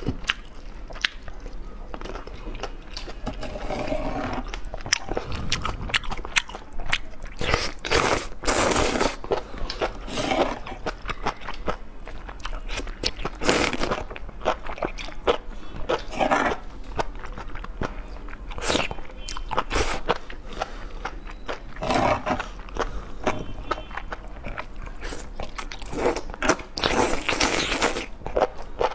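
Close-miked eating of enoki mushrooms in chili sauce: wet chewing and smacking clicks throughout, broken by several long slurps as strands are sucked in off a fork.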